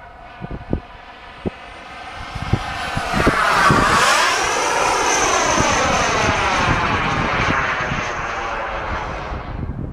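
Turbine engine of a radio-controlled model jet whining as the plane flies past. It swells loud from about two seconds in, its pitch bends as it passes, and it fades near the end. A few short knocks come in the first seconds.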